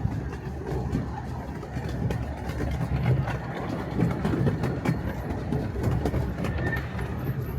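Redwood Valley Railway miniature train running: a steady low rumble with scattered clicks.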